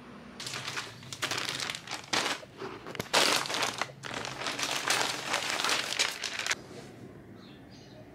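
Crinkling, rustling noise in irregular bursts for about six seconds, then it stops abruptly. A few faint high chirps follow near the end.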